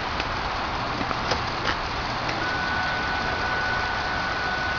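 A steady, even rumbling noise with a few light clicks in the first two seconds. About halfway through, a steady high warning tone comes on and holds: the car's anti-theft alarm, which has cut the ignition.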